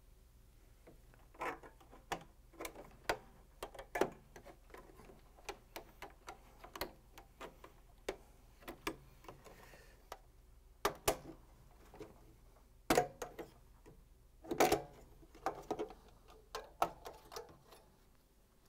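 Metal putty knives prying along the plastic choke cover of an LG microwave door, its locking tabs clicking and snapping as they are released. The clicks come irregularly, a few louder snaps about two-thirds of the way through.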